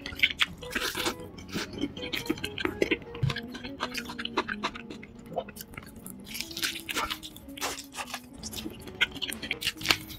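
Mouth sounds of eating crispy, sauce-glazed fried chicken: big bites into a drumstick and chewing, with many sharp, irregular crunches.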